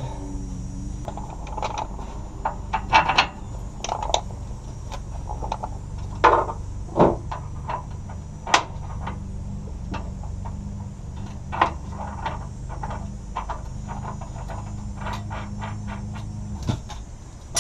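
Scattered metal clinks and knocks as large hex-head bolts are fed by hand through the holes in a school bus's steel frame rail, over a steady low hum.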